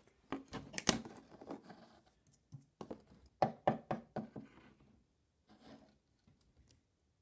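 Toy figures and a cardboard door handled on a wooden tabletop: a string of irregular light taps and knocks as the figures are moved and set down and the door is swung.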